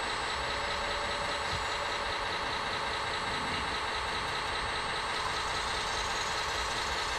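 RC model construction machinery running steadily: an even engine-like hum with a fine whine, holding at one level throughout.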